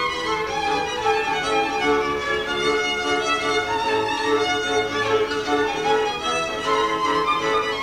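Slovak folk fiddle music: bowed strings playing an instrumental passage of a song, from a 1956 recording.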